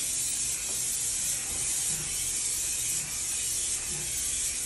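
Aerosol spray can of bathtub paint spraying continuously, a steady hiss.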